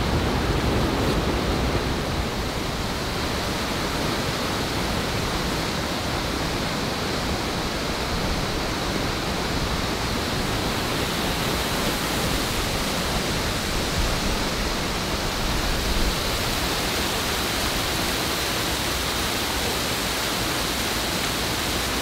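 Waterfall: water pouring down and splashing into the pool below, a steady, even rush.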